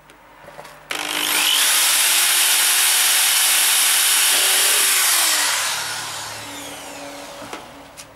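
Metabo corded electric drill boring into a pine board: the motor starts sharply about a second in, runs at full speed for about four seconds, then winds down with a falling whine.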